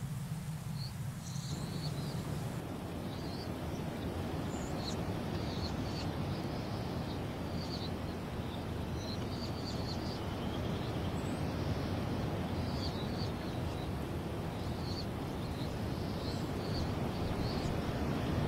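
Birds chirping in short, scattered calls over a steady rushing noise that is heaviest in the low end.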